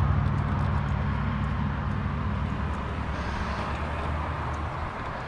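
A vehicle engine running with a steady low hum that gradually fades away, as if the vehicle is driving off.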